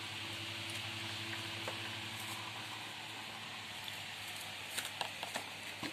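Cats scrambling and playing around a plastic basket on a tiled floor: a few soft taps and scuffs near the end over a steady low hum and hiss.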